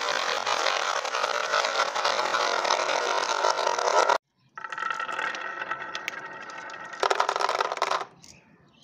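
Many glass marbles rolling and clattering down the wavy grooves of a wooden Haba marble slope in a dense, continuous rattle. The sound cuts out abruptly for a moment about four seconds in, resumes, swells louder near the end and then drops away as the tracks empty.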